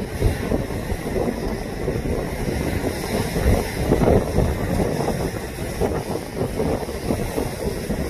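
Wind-driven waves breaking against boulders and a concrete seawall, heavily overlaid by wind buffeting the microphone; the biggest surge comes about four seconds in.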